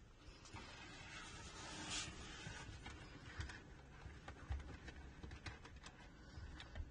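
Faint rubbing and scattered light clicks and knocks of an arm and hand working inside a cupboard, pushing a cable through a freshly drilled hole in the cabinet.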